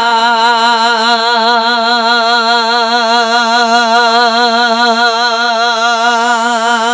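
A man's voice holding one long sung note of naat recitation, wavering in an even vibrato without a break.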